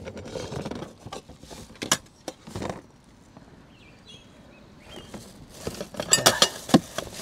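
Handling noise from an electric pressure cooker being taken out and set up: scattered knocks and rattles, a short run about two seconds in and a denser cluster near the end, with a quieter pause between.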